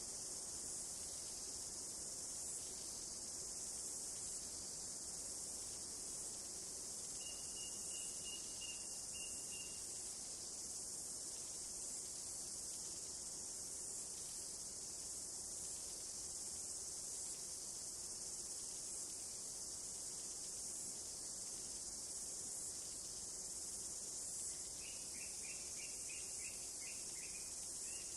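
Steady, high-pitched chorus of insects, with a short rapid bird trill about a quarter of the way in and a run of bird notes near the end.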